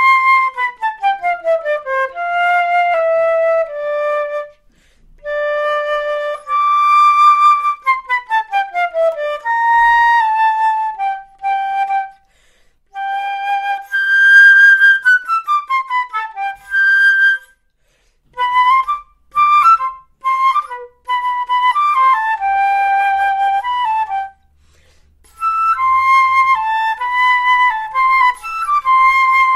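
Solo concert flute, a Sound 'Eire A' open-hole model, played unaccompanied: fast descending runs, held notes and quick detached passages, broken by several short pauses.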